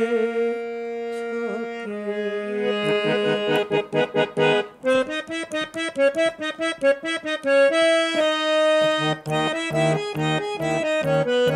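Harmonium playing an instrumental passage: held chords for the first few seconds, then a fast run of short, repeated notes.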